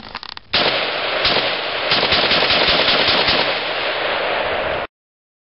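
Early Colt AR-15 rifle in .223 firing a rapid string of shots for about four seconds, then stopping abruptly.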